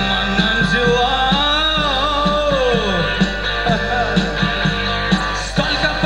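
Rock band playing live, with a lead line that bends and slides down in pitch about a second in, over the full band.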